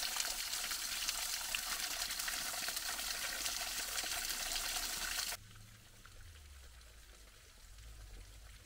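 Small waterfall splashing down through a gap of icicles and snow, a steady hiss of falling water. It cuts off abruptly about five seconds in, leaving only a faint low rumble.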